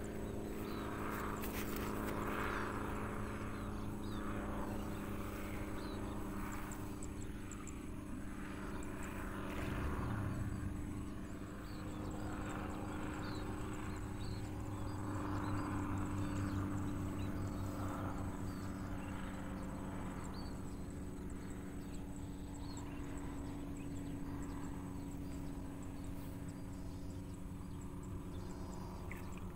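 A steady low motor hum with several even tones, holding throughout and swelling a little in the middle.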